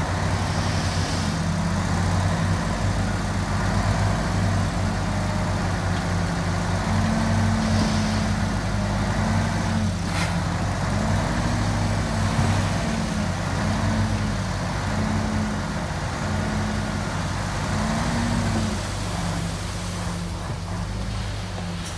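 Heavy diesel engine of earthmoving machinery running under changing load, its pitch rising and falling again and again as it works. A couple of brief hisses and a single sharp click about halfway through.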